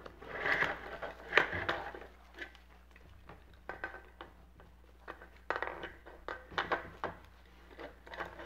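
Rustling and a scatter of small clicks and scrapes from hands working on a stuffed animatronic toy, pulling at its fabric body and wire arm.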